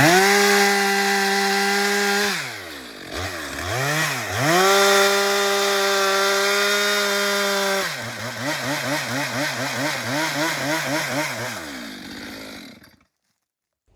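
Two-stroke chainsaw held at high revs, dropping back briefly and revving up again, then falling to a lower, wavering idle before it cuts off suddenly near the end.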